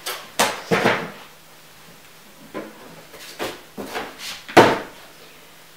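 A large plastic drink bottle knocking and clunking as it is tipped and handled on a wooden ledge: about eight short knocks over four seconds, the loudest near the end.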